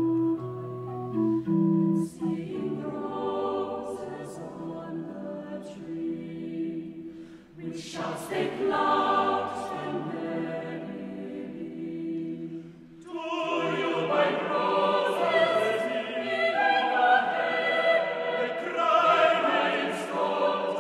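Mixed chamber choir singing a sacred choral piece. It opens on a few held chords, breaks briefly about seven seconds in, and grows louder and fuller from about thirteen seconds in.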